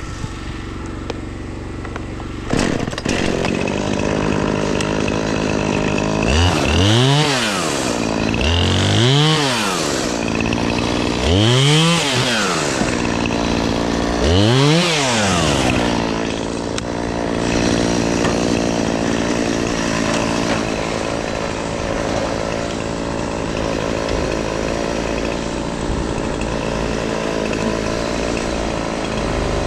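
Two-stroke chainsaw revved up four times in a row while cutting tree limbs, each rev rising in pitch and falling back. A steady engine idle runs underneath.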